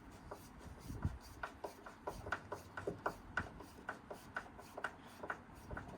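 Screws being driven by hand with a screwdriver, fastening a doorbell mounting into wood: a quick run of small clicks, about four a second, with scraping and rubbing between them.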